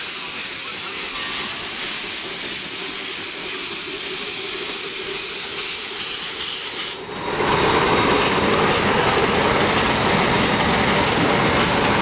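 Shay geared steam locomotive hissing steam as it pulls a passenger train past. About seven seconds in, the sound turns abruptly louder and fuller, a steady rushing noise that carries on to the end.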